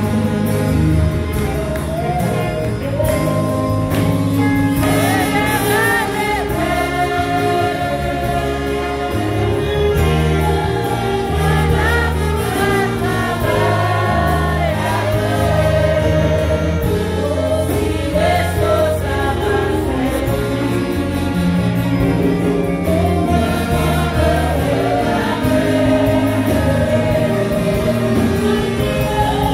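Church worship music: a group of voices singing a Haitian Creole praise song together over an instrumental accompaniment with a steady bass line.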